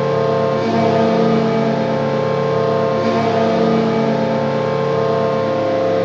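Carolina Hurricanes arena goal horn blowing one long, steady blast, a chord of several low tones that does not change in pitch, signalling a goal.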